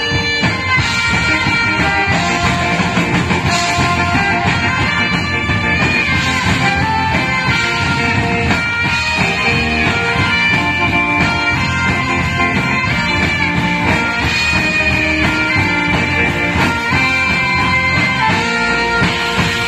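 Band music played loud and without a break: a trumpet melody over guitar and drum accompaniment.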